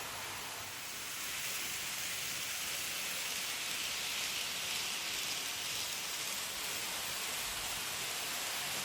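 N gauge model train running on the layout's track: a steady whirring hiss of motor and wheels on rail, growing louder about a second in.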